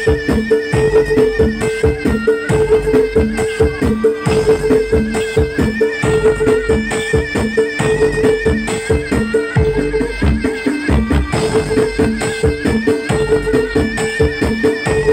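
Traditional East Javanese Bantengan accompaniment music: fast, dense drumming and rattling percussion under a held drone tone and a wavering high melody.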